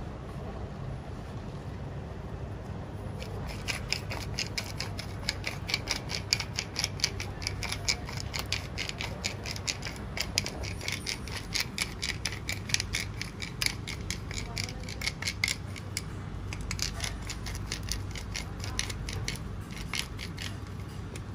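Hand-twisted pepper mill grinding peppercorns: a fast run of crunchy ratcheting clicks starting a few seconds in, a short pause, then a second shorter burst of grinding. A steady low rumble runs underneath.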